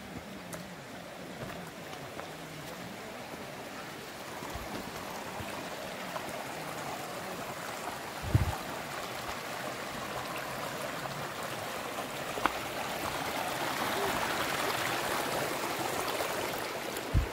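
Shallow stream running over stones, steady and growing louder in the second half, with a single thump about halfway through.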